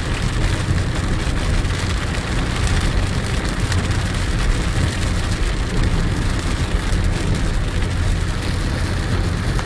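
Rain falling on a car, with many fine drop ticks over a steady low rumble.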